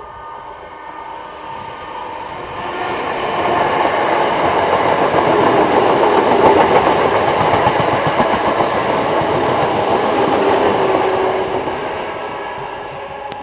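Greater Anglia class 317 electric multiple unit passing: wheel-on-rail noise builds over the first few seconds, is loudest as the coaches go by, then fades near the end.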